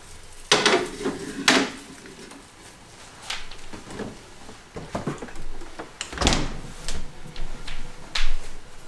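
Several separate knocks and clunks of household things being handled and set down, with quieter rustling between; the loudest come about half a second and a second and a half in, then again around six seconds.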